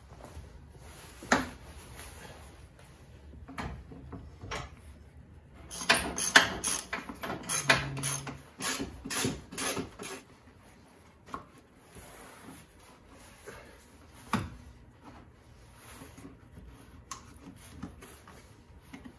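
Small metal clinks, knocks and a run of rapid clicking as a steel tow hook and its bolts are fitted to a pickup's front frame bracket with hand tools, busiest about six to ten seconds in, with single knocks scattered either side.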